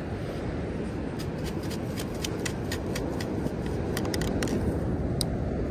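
Stainless steel perforated sand scoop being shaken to sift beach sand, with sand, grit and shell bits rattling against the metal mesh in a quick run of sharp clicks and ticks. This is the sifting-out of a dug target, a coin, over a steady rush of wind noise.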